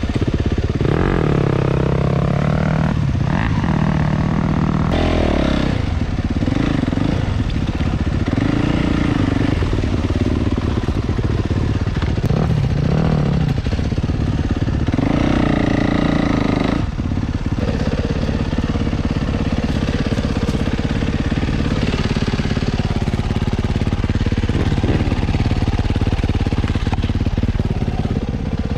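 Dirt bike engine running under load on a muddy trail, heard from on the bike, its pitch rising and falling with the throttle in repeated revs, the hardest about fifteen seconds in.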